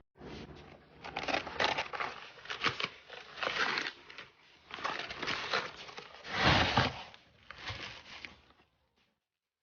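Packaging being handled during an unboxing: crinkling and rustling in irregular bursts, the loudest about two thirds of the way in, then a brief silence near the end.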